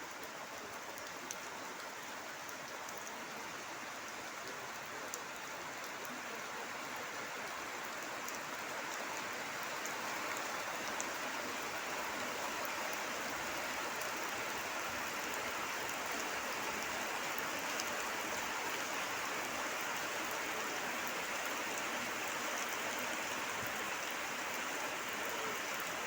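Rain falling steadily, with scattered sharp drop ticks; it grows louder and heavier about a third of the way in.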